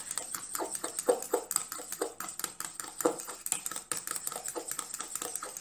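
Small spatula stirring a thick green cream fast in a metal bowl: quick, irregular scrapes and clicks against the metal, several a second, as the mixture is whipped into an emulsion.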